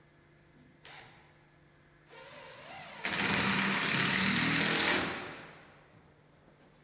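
Power drill driving a screw into wood: a short, softer start, then about two seconds running at full speed, fading off about five seconds in.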